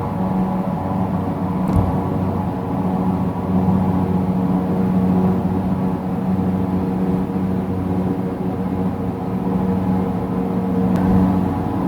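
Steady low mechanical drone with a strong hum and evenly spaced overtones, holding on without a break; it sounds like a distant motor glider or lawn mower, and its source is unknown.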